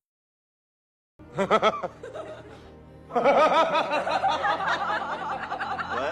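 Meme laughter sound effects: silence for about a second, then a short burst of laughing, and from about three seconds in a longer laugh with quick rising-and-falling pitch.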